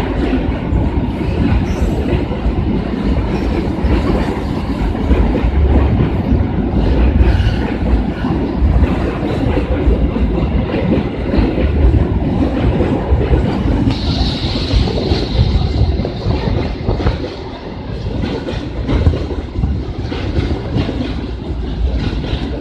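Long freight train rolling past, its wheels rumbling and clacking steadily over the rail joints. A brief high squeal comes about fourteen seconds in.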